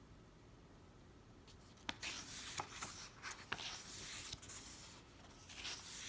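Paper pages of a book rustling as they are flipped through by hand, starting about two seconds in, with a few sharp page snaps among the rustling.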